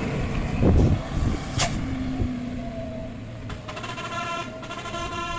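Passing road traffic: vehicle noise fades with a low thud about a second in, then a vehicle horn starts about two-thirds through and holds one steady note.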